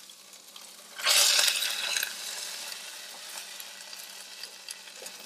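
Hot fat and basting juices sizzling on a rotisserie chicken over a gas grill: a sudden loud burst of sizzle about a second in as the bird is brushed with the drippings, easing back over about a second to a steady quieter crackle.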